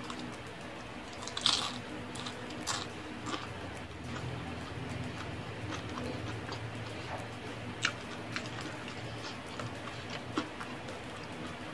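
A person eating crisp fried snacks close to the microphone: crunchy bites and chewing, with the loudest crunch about a second and a half in and scattered smaller crunches after, over a steady low hum.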